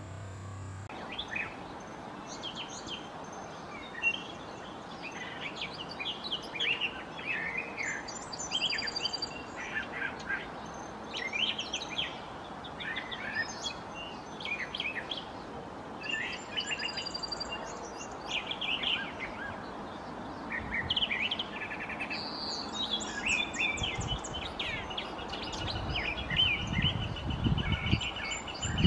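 Several wild songbirds singing and chirping, with short trills and calls overlapping one another throughout. A low rumble comes in near the end.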